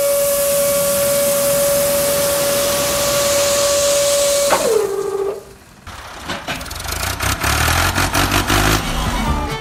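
Small electric motor of a toy dump truck whining at a steady pitch over a loud hiss of sand sliding off the tipped bed. About four and a half seconds in, the whine drops in pitch and stops, and a run of rapid clicks over a low rumble follows.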